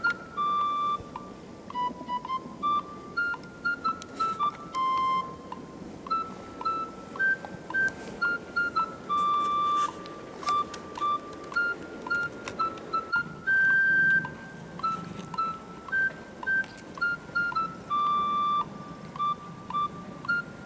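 Background music: a simple melody of short, evenly paced notes stepping up and down in pitch.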